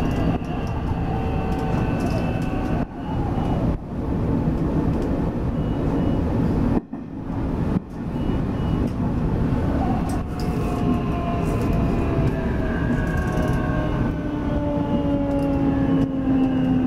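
Nishitetsu 9000 series electric train heard from the driver's cab, with a steady rumble of wheels on rail. From about ten seconds in, the inverter-driven traction motors whine in several slowly falling tones as the train slows for a station.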